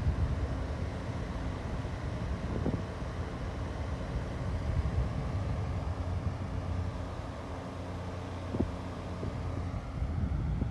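Impress 9-inch box fan running steadily: a rush of air buffeting the microphone over a low, even motor hum.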